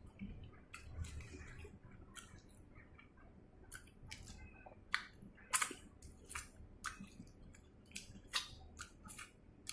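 A person chewing chicken with the mouth close to the microphone: irregular short wet clicks and smacks, a few louder ones in the second half.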